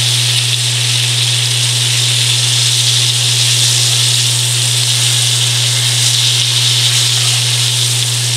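Battered rock cod pieces sizzling in shallow oil in a cast-iron skillet, a steady hiss under a constant low hum.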